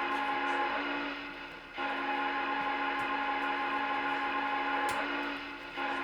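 Electronic steam whistle of a Lionel O scale Rio Grande Challenger model's TMCC RailSounds system, a chime whistle sounding several tones at once in long blasts: one fades out about a second and a half in, the next is held for about four seconds, and a third starts near the end.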